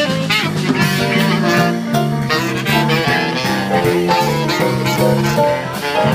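Live dixieland jazz band playing: a saxophone carries the lead over a stepping bass line, keyboard and a drum kit with frequent cymbal and drum strokes.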